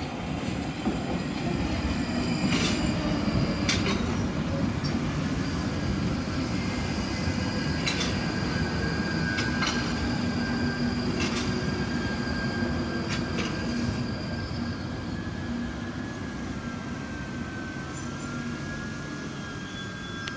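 London Underground Northern line 1995 Stock train running into the platform and slowing: a steady rumble of wheels on rail, several sharp clacks over rail joints, and a high squeal that sets in about six seconds in and holds to the end.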